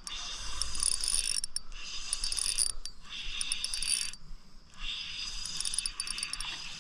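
Ultralight fishing reel cranked in quick spells with short pauses, its gears and drag clicking, as a hooked fish is reeled in.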